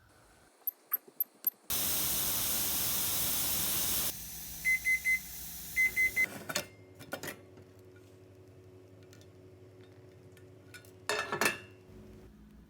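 Electronic beeps, two sets of three short beeps, after a loud hiss lasting about two and a half seconds. A steady low hum follows, with a brief clatter near the end.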